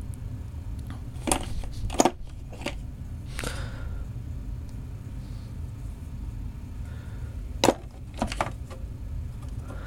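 Scattered clicks and knocks, about seven, of metal milling cutters and arbors being handled in a tool drawer, over a steady low hum.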